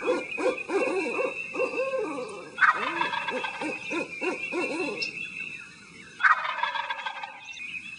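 Turkey gobbling, with two sudden loud gobbles about two and a half and six seconds in.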